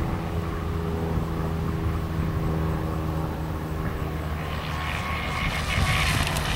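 Fast-electric RC tunnel-hull model boat running flat out: a steady motor and propeller drone. A hiss grows louder from a little past the middle as the boat comes close.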